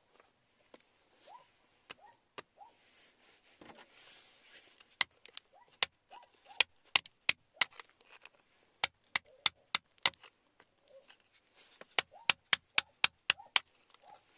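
Metal pick or chisel tapping and picking at the rock around an embedded agate nodule: a run of sharp clicks, a few at first, then several a second from about five seconds in.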